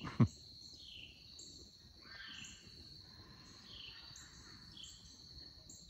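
Evening insect chorus: a steady high trill with short chirps repeating every half second or so. A brief thump about a quarter second in.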